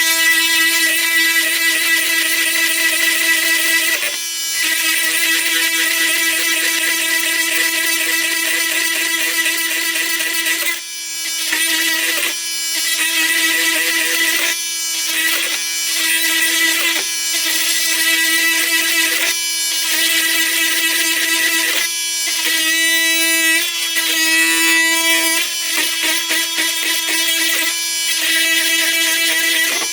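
Flex FX4111 24-volt cordless oscillating multi-tool running on high, its dull blade cutting slowly through a 4-inch Grip-Rite fastener: a loud, steady buzzing whine with metallic scraping. The sound briefly eases or breaks off about a dozen times, more often in the second half, as the blade catches or is lifted.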